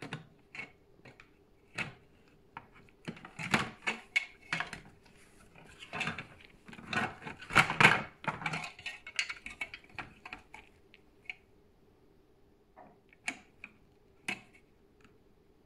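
Hard plastic clips and housing of a Samsung PowerBot robot vacuum's wheel module clicking, scraping and knocking as they are pried apart with a small screwdriver. The clatter is irregular and busiest through the middle, thinning to a couple of single clicks near the end.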